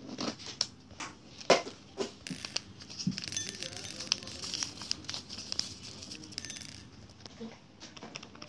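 Scissors snipping a small paper label, with sharp clicks in the first two seconds, then paper rustling and crinkling as it is handled, followed by a few light clicks near the end.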